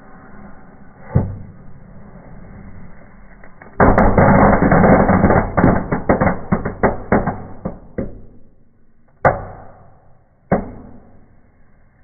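Small indoor fireworks going off in a fireplace: a low fizzing hiss with a single crack about a second in, then about four seconds of rapid, overlapping popping and banging. Two more single bangs follow, a little over a second apart.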